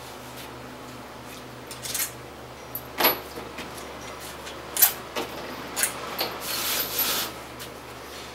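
Scattered clicks, knocks and rubbing of a GM car alternator's metal case being handled and worked apart by hand, its case screws already out. A faint steady low hum runs underneath.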